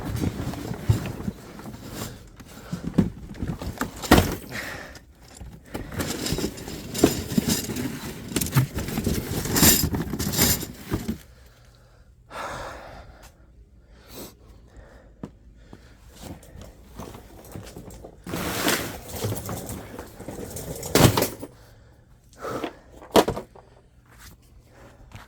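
Boxes and bags being rummaged through: rustling and a string of knocks and thumps as items are picked up and set down, busiest in the first half and sparser after.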